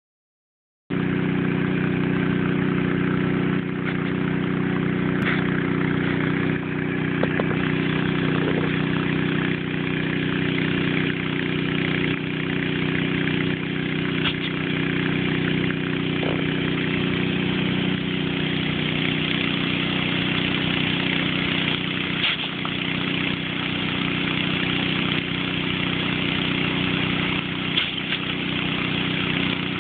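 Steady hiss of a water jet spraying upward from a hose nozzle, over the constant hum of an engine running.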